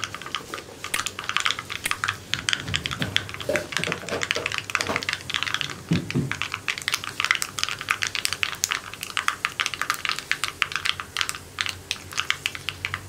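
Mustard and fenugreek seeds spluttering in hot oil in a small pan, a dense irregular run of sharp pops and crackles over the sizzle: the seeds bursting, as they do at the start of a tempering.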